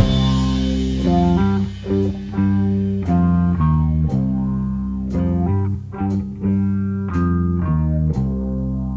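Stoner rock music: a bass and electric guitar riff of plucked notes, with a cymbal crash at the very start.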